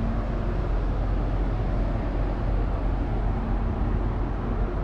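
Steady low rumble with a faint steady hum from the Jumbo Ferry Aoi's engines and machinery, running at the berth shortly before departure.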